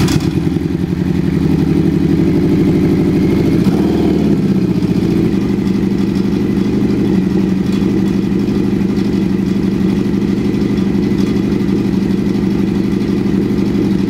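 Honda CB750 cafe racer's inline-four engine idling steadily through homemade baffle inserts in its exhaust, whose tabs are bent in to quieten it. Its pitch rises and falls briefly about four seconds in.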